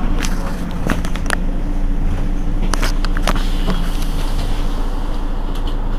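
Mercedes-Benz Citaro G C2 articulated bus standing with its engine idling, a steady low hum, with a few sharp clicks in the first half.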